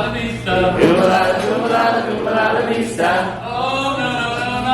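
Several voices singing together in a chant, over a steady low hum.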